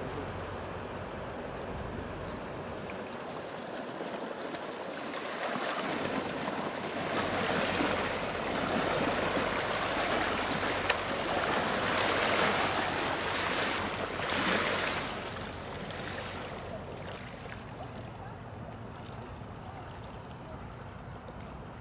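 Wake waves from a passing motor yacht washing and splashing against the canal bank. The splashing swells about six seconds in, stays loudest for roughly eight seconds, then dies away to a gentle lapping.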